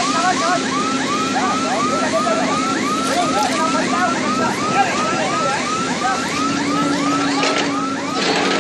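Mobile crane's electronic warning alarm sounding an even, rapid string of rising-and-falling chirps, about three a second, over a steady low hum.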